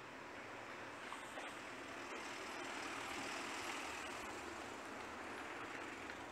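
Street traffic noise: a road vehicle passing, swelling to a peak about three seconds in and then fading, over a steady hiss of traffic.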